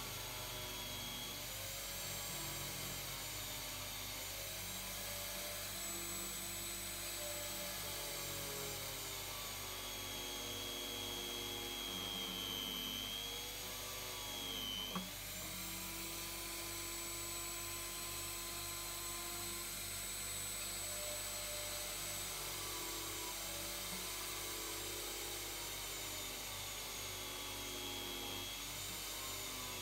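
Drill press running a thin bit into a copper MIG welding contact tip clamped in a vise: a steady motor hum with high whines that slowly shift in pitch as the bit cuts. One sharp click about halfway through.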